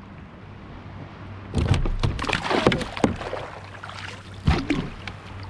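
Splashing and knocking around a kayak on the water. There is an irregular burst from about a second and a half in that lasts a second and a half, and a shorter one near the end, over a steady low hum.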